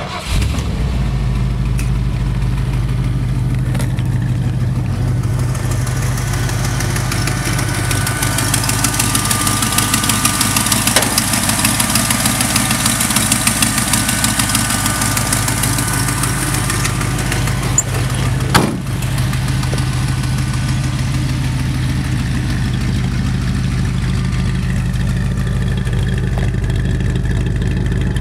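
A Ford V8 in a 1951 Ford pickup catches right at the start and settles into a steady idle. There is one sharp knock about two-thirds of the way through.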